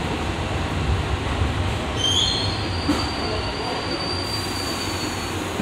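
R62A subway car running on the rails, heard from inside the car: a steady rumble of wheels and running gear. About two seconds in, a thin, high wheel squeal starts and lasts about three seconds as the train slows into the station.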